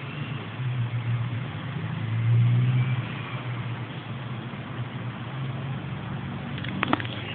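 A sleeping pet snoring: low, drawn-out snores one after another, the loudest about two seconds in. A few sharp clicks near the end.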